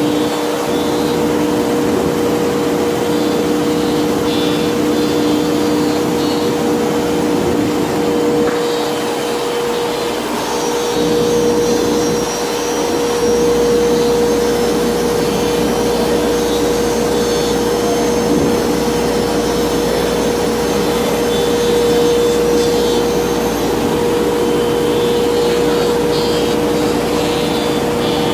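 3000 Series CNC router's spindle running and cutting into a board sheet, a steady tone over the rushing hiss of its dust-collection hood and hose.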